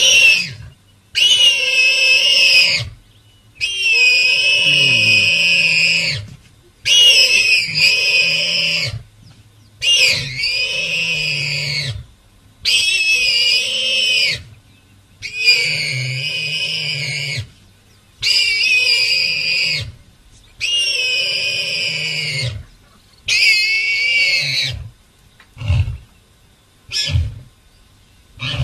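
A warthog squealing from inside its burrow while a lion digs at the entrance: about ten long, high-pitched squeals of roughly two seconds each with short gaps between, then a few short calls near the end.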